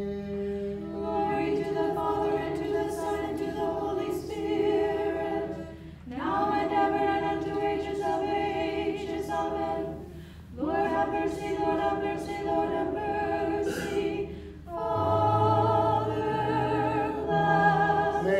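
Small church choir singing an Orthodox liturgical response a cappella, in long held phrases with brief breaths between them.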